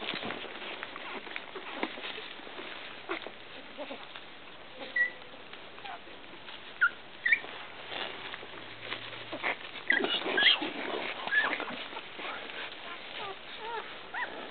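Nursing pit bull puppies squeaking in short, high chirps that rise or fall, among scattered clicks. The squeaks are busiest about ten seconds in.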